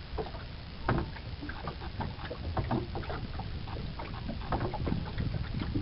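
Small wooden boat being sculled with a Godyoto automatic sculling oar, worked by a wooden hand lever: a run of irregular small splashes, drips and knocks as the blade works the water, over a low steady rumble.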